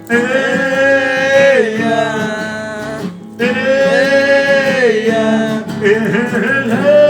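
A man sings two long held wordless notes, each about a second and a half, over acoustic guitar. This is the drawn-out 'eia… oh' refrain of a sertanejo ballad. A new 'eia' starts near the end.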